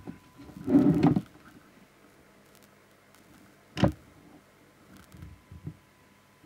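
Handling noise on a workbench: a short scraping rustle about a second in, one sharp knock a little under three seconds later, then a few soft taps.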